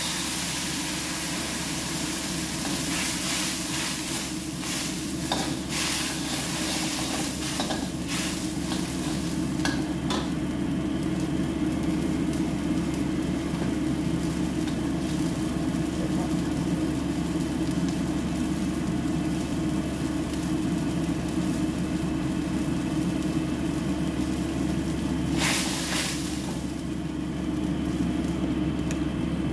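Food sizzling in a hot wok, loud for the first ten seconds or so after ingredients go in, then settling and flaring up again briefly near the end. Underneath runs the steady low rush of the stove burner, with a few light knocks in the first ten seconds.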